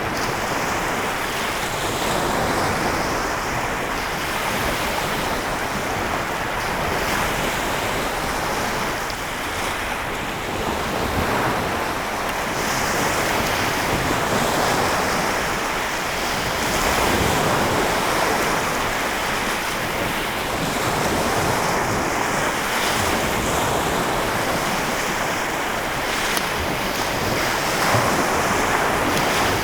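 Lake Michigan waves breaking and washing on the shore in a continuous wash that swells and eases every few seconds, with wind buffeting the microphone.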